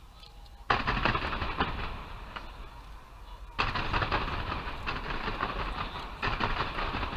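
Fireworks crackling: two sudden outbursts of dense crackle, the first about a second in and the second about halfway through, each going on for a few seconds.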